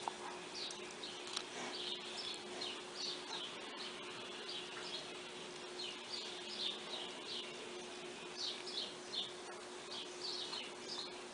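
Small birds chirping over and over, quick short downward-sliding chirps several times a second, over a faint steady hum.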